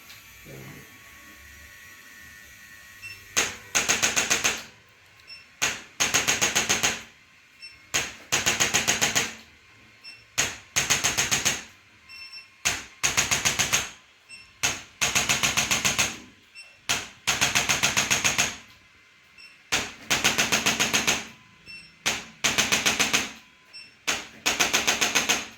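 Rapid mechanical clattering that starts a few seconds in: about ten bursts of very fast ticks, each about a second long, repeating roughly every two seconds, with a small click just before each burst.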